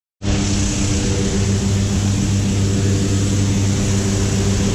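Steady, loud drone of a propeller aircraft's engines heard from inside the cabin, a low hum with a steady rushing noise over it, starting a moment in.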